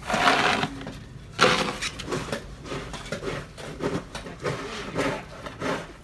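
Snow shovel blade scraping across the pavement: two long scrapes in the first two seconds, then a run of shorter scrapes and knocks.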